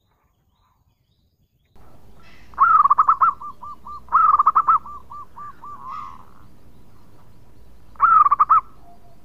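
Zebra dove (perkutut) cooing, after a near-silent start: three song phrases, each a quick run of loud rolling notes, the first two trailing off into a string of softer repeated coos.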